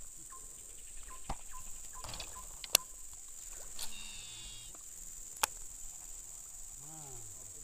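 Steady high-pitched drone of insects in swamp forest, broken by a few sharp clicks, the loudest about two and a half seconds in.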